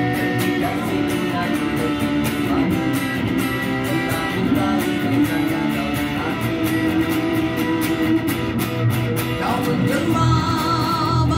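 Electric guitar picking a melodic accompaniment, with a man singing along; near the end his held notes waver with vibrato.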